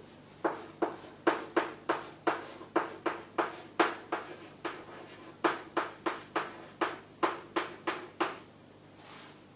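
Chalk writing Chinese characters on a blackboard: a quick run of short chalk strokes, about three a second, with a short pause near the middle, stopping shortly before the end.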